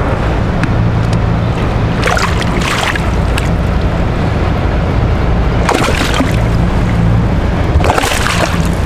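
A hooked fish splashes at the surface and in a landing net in three short bursts, about two, six and eight seconds in, over a steady, loud low rumble.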